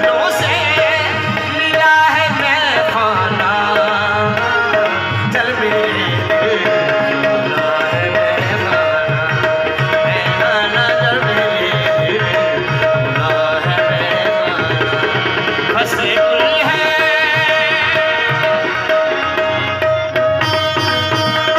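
Ghazal music: tabla playing a rhythm under a melody on a Roland XPS-10 electronic keyboard and harmonium, with a steady held note throughout.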